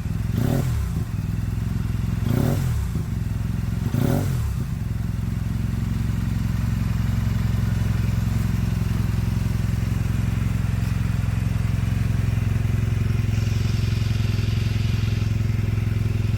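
Turbocharged Honda Silver Wing 600 scooter's parallel-twin engine, running on a MicroSquirt standalone ECU, revved three times in quick blips in the first few seconds, then settling to a steady idle.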